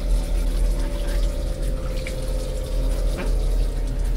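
A steady low hum with a held tone above it and a faint hiss, running on unchanged.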